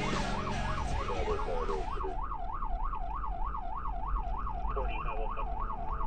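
Electronic siren of a responding fire department vehicle in fast yelp, its pitch sweeping up and down about four times a second, heard from the vehicle's own dashcam. Music plays over it for the first two seconds and then stops.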